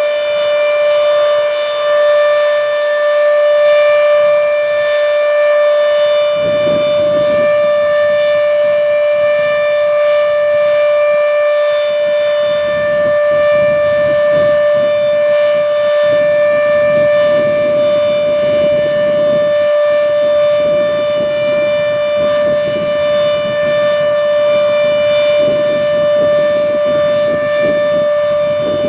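H.O.R. Siro-Drone warning siren holding a steady, unwavering tone at full speed: the full-alert signal. From about six seconds in, a low rumbling noise comes and goes beneath the tone.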